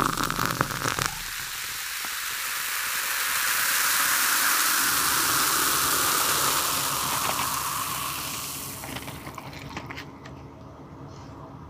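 A smooth hissing rush that swells for a few seconds and then fades away. Near the end come faint small clicks and rustles of cardboard chalk boxes being handled.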